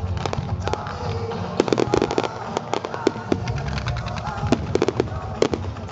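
Fireworks display: many sharp bangs and crackles from bursting shells in quick, irregular succession, thickest about two seconds in, with music playing underneath.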